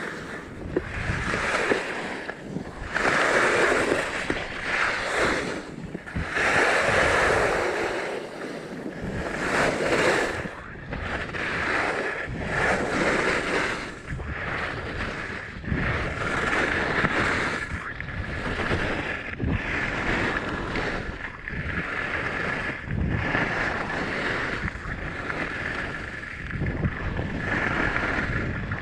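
Skis carving and scraping over packed, groomed snow, the hiss swelling with each turn about every one to two seconds, mixed with wind rushing over the microphone.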